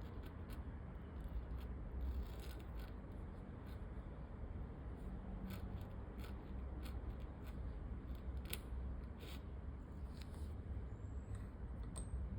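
Calligraphy pen nib scratching across paper in short, irregular strokes, over a low steady background rumble.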